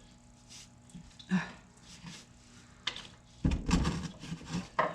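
Hand work on an engine's serpentine belt and pulleys: a few light clicks and knocks, then a louder stretch of rubbing and handling noise lasting just over a second, starting about three and a half seconds in.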